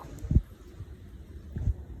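Two dull low thumps about a second and a quarter apart, over a low rumble of wind on the microphone.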